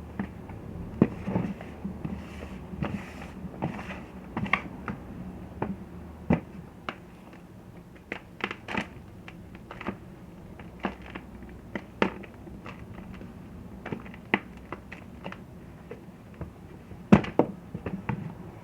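Blocks of gym chalk being crushed, giving irregular crisp crunches and snaps. The loudest snaps come about a second in and again near the end.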